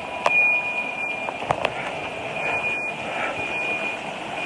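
A high-pitched electronic alarm tone sounding on and off over a steady rushing noise, with a few sharp knocks near the start and about a second and a half in.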